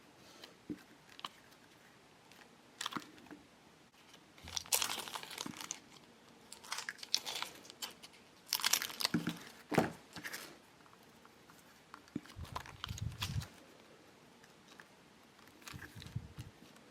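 Plastic candy-kit packets being handled, crinkling and tearing in irregular bursts with sharp crackles, plus a few dull bumps near the end.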